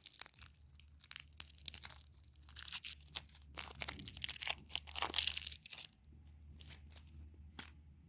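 Plastic candy packaging being torn open and crinkled by hand, a dense run of crackling that thins out to a few separate crinkles about six seconds in.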